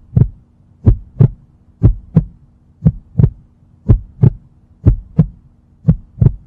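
Heartbeat sound effect: a steady double thump, about one beat pair a second, over a faint low hum.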